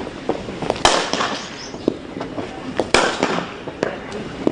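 Cricket bat striking a ball: two loud sharp cracks about two seconds apart, with a few fainter knocks between them.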